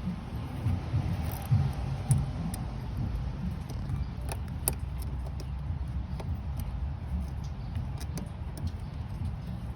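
Scattered light metallic clicks and clinks of hand tools and parts, with a couple of duller knocks about a second and a half and two seconds in, over a steady low rumble.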